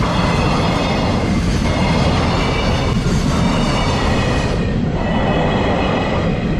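A freight train's wagons rolling past close by: a loud, steady rumble with a surge of wheel clatter about every second and a half as each wagon's wheels pass.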